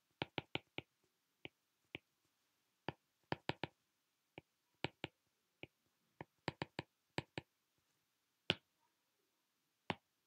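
Stylus tip tapping on a tablet's glass screen while writing: a run of short, sharp clicks, several a second in irregular clusters, with silence between them.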